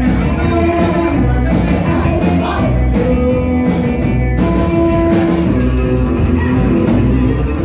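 Live rock and roll band playing: electric guitars over a drum kit with steady cymbal and snare hits.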